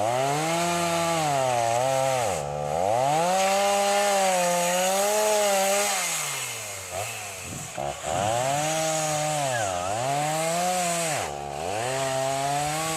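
Stihl two-stroke chainsaw revving high and cutting wood, its pitch sagging and recovering as the bar loads. It drops briefly toward idle about two and a half seconds in, again around seven to eight seconds, and near the end, then revs back up.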